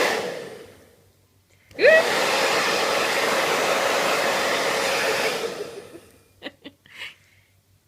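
Hand-held hair dryer switched on: its motor whine rises as it spins up about two seconds in, then it blows steadily for about three and a half seconds before being switched off and winding down.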